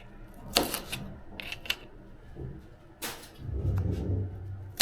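Kitchen utensils being handled on a worktop while getting ready to cut: a few separate knocks and clatters, irregularly spaced, then a low rumble for about a second near the end.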